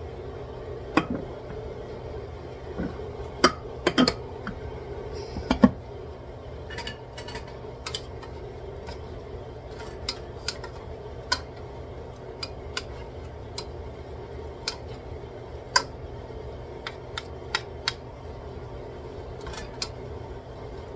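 Wooden spatulas stirring cabbage in a stainless steel pot, knocking and clacking against the pot's sides and rim, with the loudest knocks in the first few seconds and lighter ones after. A steady low hum runs underneath.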